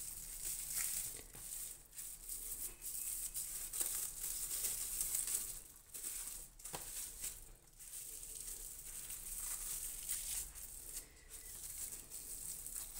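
Plastic cling film crinkling and rustling in uneven spells as hands roll and twist it tight around a stuffed turkey tenderloin.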